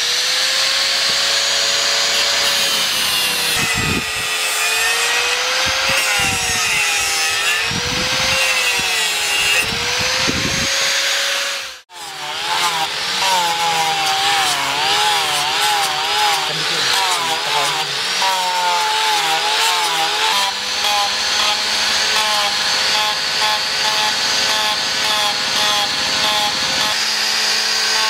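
Angle grinder with a sanding disc shaping a wooden knife handle: the motor whines and its pitch wavers up and down as the disc works the wood. The sound cuts off abruptly just before halfway, then starts again.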